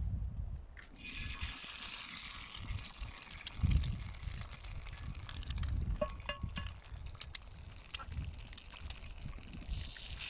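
Eggs frying in hot oil in a frying pan: a sizzle starts suddenly about a second in as the first egg goes in, crackles on, and swells again near the end as a second egg is added. A low rumble runs underneath.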